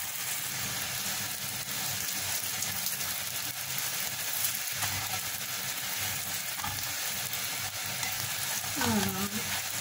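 Oil sizzling steadily under rghaif (layered msemen flatbreads) frying in a cast-iron pan.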